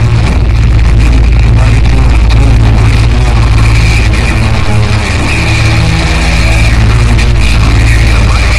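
Power electronics / harsh noise music: a loud, dense wall of distorted noise over a steady low drone.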